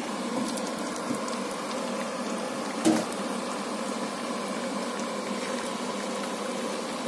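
Hot oil sizzling steadily in a frying pan as sliced smoked sausages fry. About three seconds in there is a short, louder burst, as the sausage slices go into the pan.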